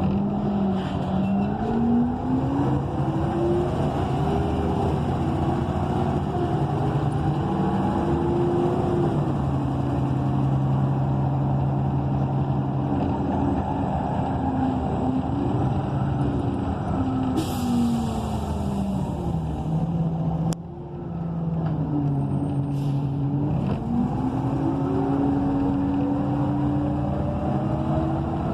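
Cummins Westport ISL G natural-gas engine and Allison B300R automatic transmission of a transit bus heard from inside, their pitch climbing and falling several times as the bus speeds up, shifts and slows. A short hiss of air comes about two-thirds of the way through.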